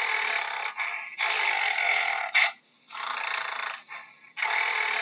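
Gorilla giving harsh, breathy rasps, four in about five seconds, each lasting about a second, with one short sharp sound about halfway through.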